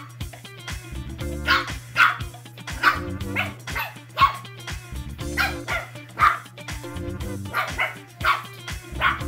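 Two-month-old Shih Tzu puppies barking and yipping in short, high yaps while they play-fight, about a dozen in quick succession, over background music with a steady bass line.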